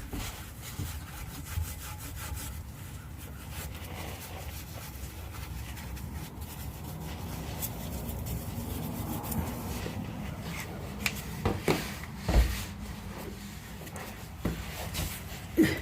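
Hand abrasive being rubbed back and forth over a rusty steel exhaust pipe, scrubbing off surface rust before painting. A few short, louder knocks come in the last few seconds.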